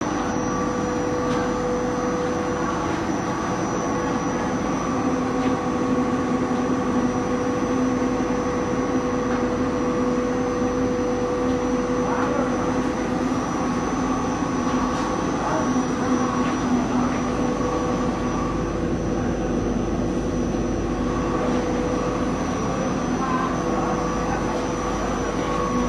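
Blown-film plastic extrusion machine running: a steady machine drone with several held humming tones from its belt-driven electric drive and screw extruder.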